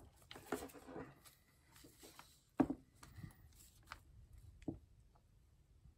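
Quiet handling sounds of a small handheld iron and paper: rustling as the paper overlay is smoothed, and a few light knocks as the iron is set down on the worktop, the loudest about two and a half seconds in.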